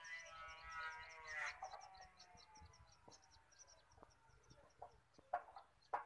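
A rooster's crow trailing off in the first second and a half, its pitch falling, while a small bird keeps up a rapid string of high, thin chirps throughout. A few sharp clicks near the end.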